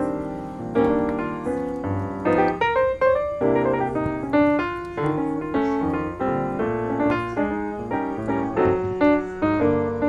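Background piano music, with many short notes played in quick succession.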